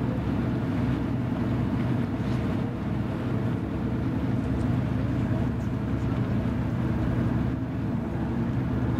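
Fireboat's engines running steadily under way: a constant low drone that does not change in pitch or level.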